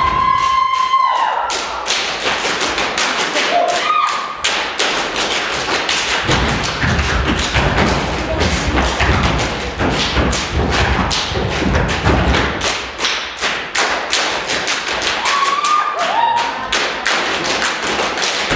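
Stepping: a team stamping their feet and clapping in fast, steady rhythm, with shouts and whoops from the crowd near the start and again near the end.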